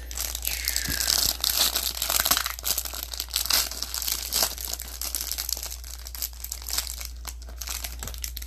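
Plastic wrapping being crinkled and torn by hand, a continuous crackle of many small clicks, as trading-card packaging is opened. A steady low electrical hum runs underneath.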